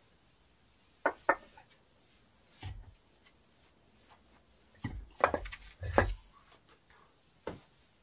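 Old chimney bricks being handled as the chimney is taken apart: a string of separate knocks and clinks with pauses between, the loudest about a second in and again about six seconds in.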